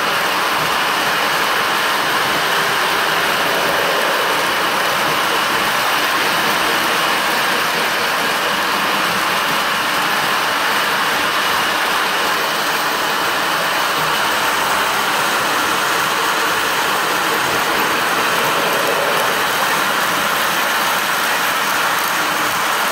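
Several Lionel electric toy trains running together on three-rail track: a steady whirring rumble of their motors and metal wheels on the rails.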